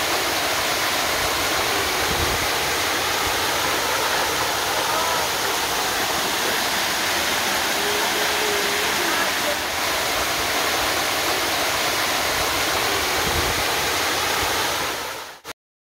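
Waterfall pouring down a rock face into a shallow pool: a steady rush of falling water and spray that cuts off suddenly near the end.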